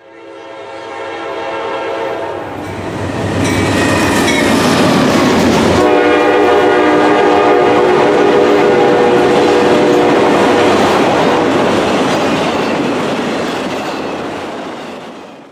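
Freight locomotive air horn sounding several blasts, the last one long, over the rumble and clatter of passing freight cars on the rails.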